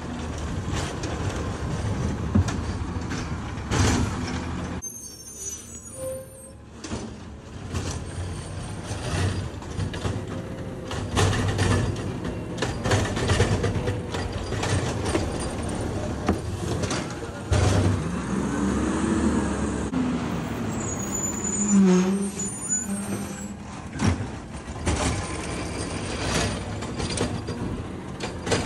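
Automated side-loader garbage truck at work: its diesel engine runs and rises in pitch as the hydraulic arm lifts wheeled carts, tips them over the hopper and sets them down. Repeated sharp knocks and clatter come from the carts and arm.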